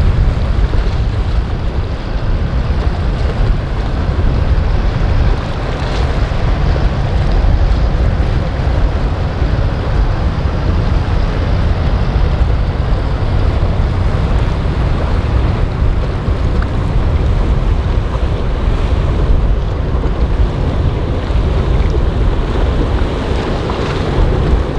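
Steady wind rumble buffeting the microphone over the rushing wash of waves and surf in a boat inlet.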